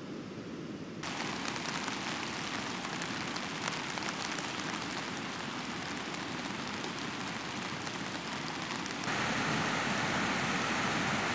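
Steady hiss of rain falling on a tent's thin fabric, heard from inside the tent during a short shower. It steps up abruptly about a second in and again near the end.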